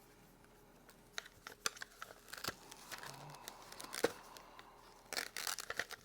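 Hands handling a polymer duty holster and its mounting hardware: scattered sharp clicks and short scraping, rustling noises, the loudest click about four seconds in and a flurry of rustling just after five seconds.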